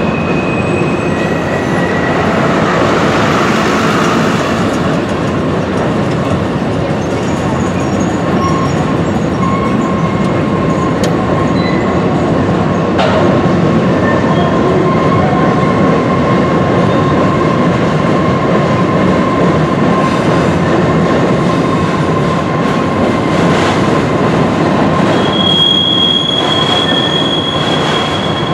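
Freight train of covered hoppers and autorack cars rolling past on an elevated track: a steady, loud wheel-on-rail rumble. A thin steady wheel squeal sets in about ten seconds in, and a higher-pitched squeal joins near the end.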